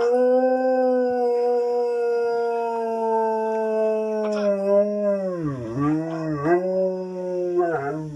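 Alaskan Malamute howling: one long, nearly steady howl that sags slightly in pitch. In the second half it breaks into a wavering howl whose pitch swoops down and back up several times.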